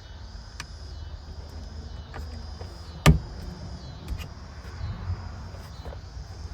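Parts being handled during a wiring install: a few light clicks and one sharp click about three seconds in, over a steady low hum and a steady high-pitched pulsing background.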